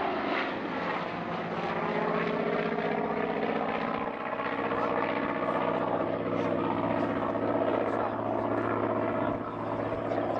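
Douglas Skyraider's big piston radial engine droning steadily as the propeller plane flies past overhead.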